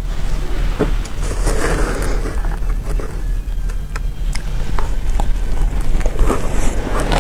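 Metal spoon scraping and scooping powdery shaved ice in a steel bowl, then a few crisp bites into the ice, over a steady low hum.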